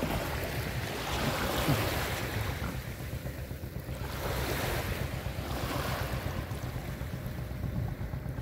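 Small waves breaking and washing up over sand at the water's edge, the surf swelling and fading every couple of seconds, with wind rumbling on the microphone.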